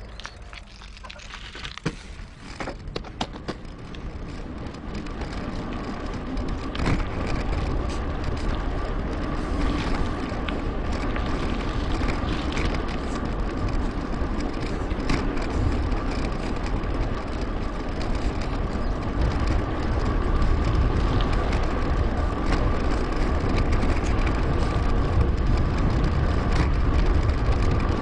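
Riding sound from a Merida Big.Nine mountain bike: wind rushing over the camera's microphone with tyre and road rumble. It builds over the first several seconds as the bike gets up to speed, then holds steady, with scattered clicks and a faint steady whine.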